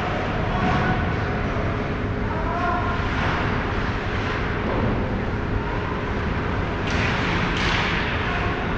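Ice rink ambience: a steady low rumble with a faint hum, distant shouts from players and spectators, and two brief sharper noises about seven seconds in.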